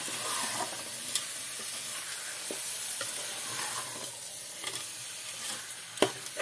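Small whole fish sizzling steadily in oil and turmeric masala in a metal pot while a steel ladle stirs them, with a few scrapes and a sharp clink of the ladle against the pot near the end.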